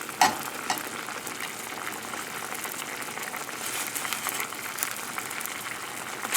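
Wine and lemon-juice sauce with mushrooms and onion sizzling steadily in a pan as it reduces around chicken cutlets, with a brief click about a quarter second in.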